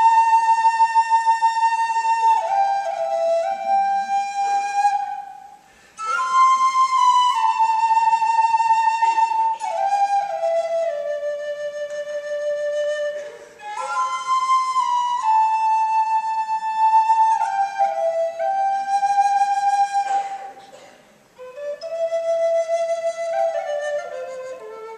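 Native American flute playing a slow solo melody in long phrases that step downward in pitch, with short breath breaks between them.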